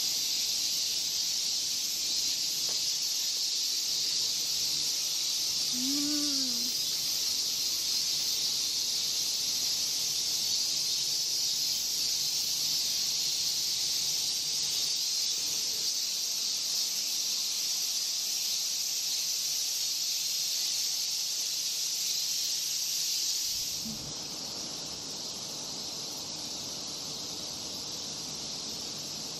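Chorus of summer cicadas in the trees, a steady, loud, high hiss. A single short call rises and falls about six seconds in. The chorus turns quieter about 24 seconds in.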